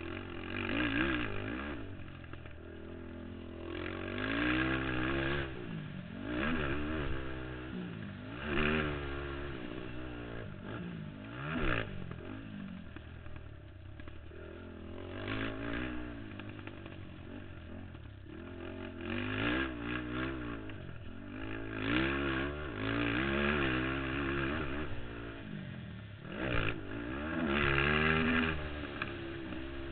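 Racing ATV engine heard from on board, revving up hard and dropping back again and again, a new rise every two to three seconds, as the quad accelerates along the dirt track and backs off for the corners.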